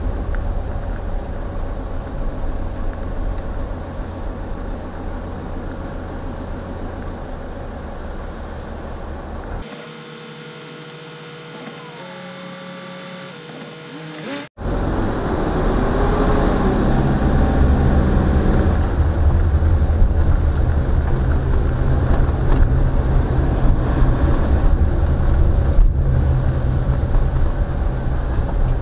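Road noise of a vehicle heard from on board in rainy traffic: a steady low engine rumble with wet-road hiss. About ten seconds in it drops to a quieter idle while stopped in traffic. After a brief break it returns louder, the engine pitch rising as the vehicle pulls away.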